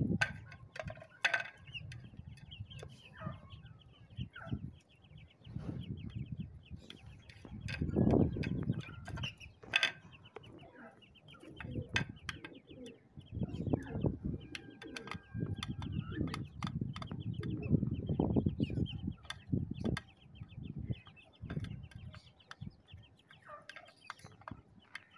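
Young chickens clucking softly while pecking food from a plate, with repeated sharp clicks of beaks on the plate and scattered high chirping. Low rumbling thumps swell up now and then, loudest about a third of the way in and again through the middle.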